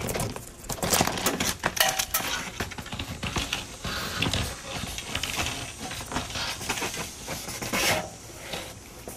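Irregular knocks, clinks and scraping as wood siding boards are pried loose and handled, loudest in the first couple of seconds and again near the end.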